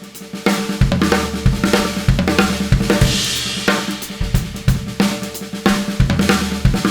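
Pearl drum kit with Soultone cymbals played live: a groove on bass drum, snare and hi-hat, and a six-stroke-roll fill in which the fourth stroke is replaced by a bass-drum kick (right, left, left, kick, right, left). A cymbal crash rings out about three seconds in.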